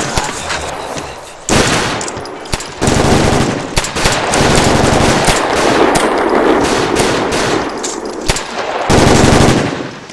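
Automatic gunfire in repeated bursts of sharp shots, with a long dense volley from about three seconds in and a last loud burst near the end.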